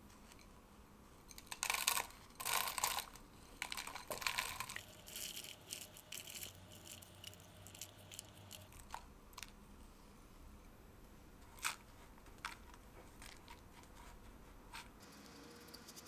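Crushed Digestive biscuit crumbs scraped from a glass bowl with a silicone spatula, pattering onto parchment paper in a loaf pan: crunchy rustling, loudest about two to five seconds in, then a few light knocks.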